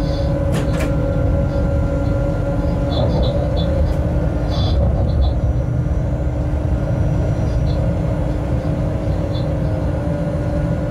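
Freight train heard from the locomotive cab while running: a steady low rumble with two steady hum tones, and a few light clicks and ticks.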